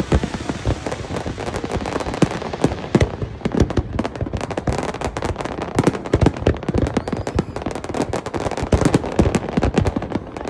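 Fireworks display going off: a dense, irregular stream of sharp cracks and bangs, several a second, with no let-up.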